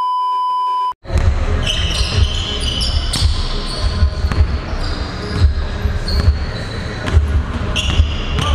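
A steady test-tone beep lasting about a second, then a pickup basketball game on a hardwood gym floor: the ball bouncing in repeated thuds, with short sneaker squeaks in between.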